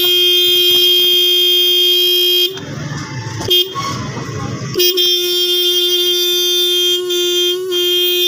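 A Denso electric car horn sounding in a steady blare, cut off after about two and a half seconds and sounded again about two seconds later. It is being test-sounded after its rusted contact was cleaned with diesel and its plate adjusted to cure a rattling 'chhan chhan' sound.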